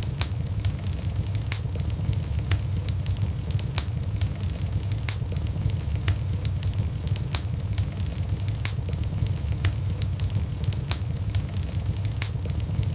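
Wood fire burning with frequent sharp crackles and pops over a steady low rumble of the flames.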